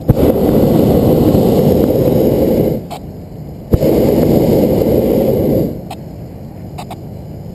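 Hot air balloon's propane burner firing in two blasts, the first about two and a half seconds long and the second about two seconds, each starting with a sharp click.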